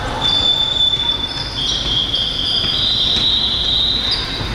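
Basketball shoes squeaking on a court floor: several high, overlapping squeals, some held for a second or more, over the steady noise of the gym.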